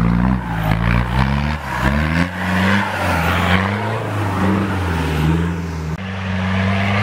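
Off-road competition vehicle's engine revving hard, its pitch rising and falling again and again as the tyres spin in deep mud and fling it out with a rushing hiss. About six seconds in, the sound changes abruptly to a steadier engine note.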